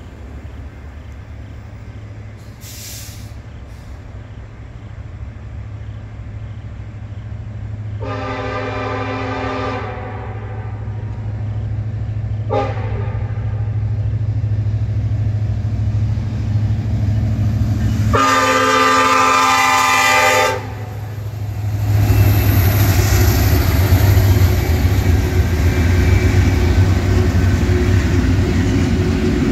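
A diesel locomotive's Nathan K5LLA five-chime horn blows a long blast, a short one and another long blast for a grade crossing. Under it, the low engine sound of the approaching locomotives grows steadily louder, and in the last several seconds the locomotives pass close by.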